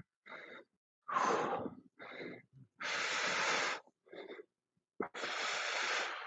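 A man breathing hard from exertion: about six forceful breaths in and out, each up to about a second long, with short silent gaps between.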